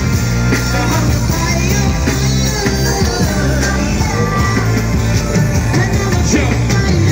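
Live concert music over a loud stage sound system, with a steady heavy bass under a melodic line.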